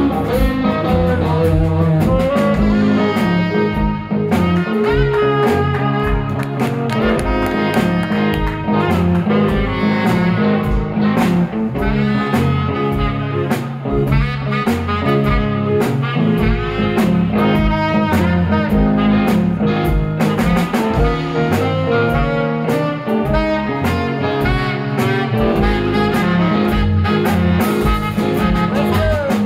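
Live blues instrumental: a saxophone plays the lead over electric guitars and a drum kit keeping a steady beat.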